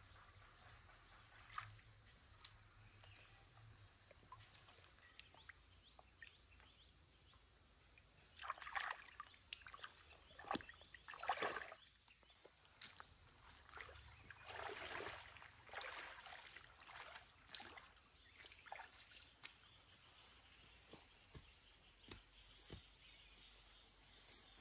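Shallow stream water sloshing and splashing in short bursts as a person wades and gropes by hand along the muddy stream bed for snails; the loudest splashes come about a third of the way in and again just past halfway.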